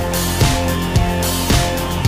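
Rock-style background music with a steady beat, about two beats a second, over sustained chords.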